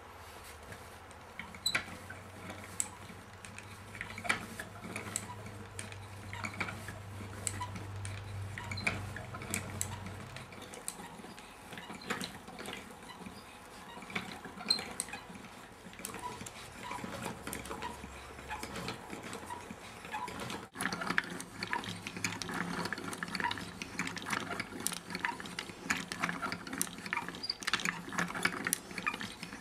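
Wooden gears and linkages of a hand-cranked automaton clicking and knocking irregularly as the crank turns, wood on wood, growing busier and louder about two-thirds of the way in. A steady low hum runs under the first third.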